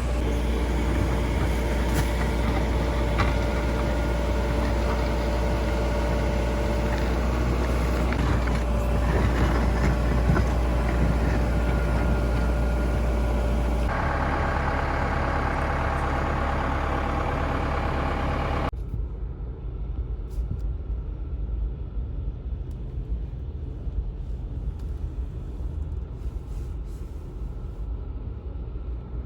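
Heavy diesel machinery running steadily. The sound changes abruptly about fourteen seconds in and again about five seconds later, after which it is quieter and duller.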